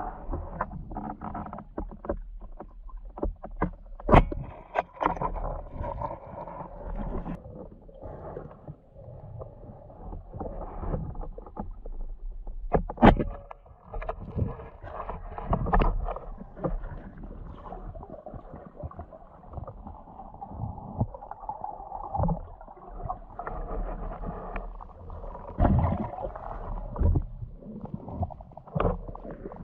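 Muffled water sloshing and splashing, as heard through an action camera's waterproof housing while diving, with irregular knocks and clicks throughout and a sharp knock about four seconds in and another near the middle.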